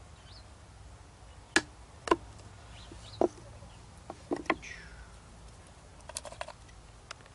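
Chisel being driven with a wooden club, chopping a mortise into green wood: six sharp knocks, the first few about half a second to a second apart and the last three close together, then a quick run of lighter clicks near the end.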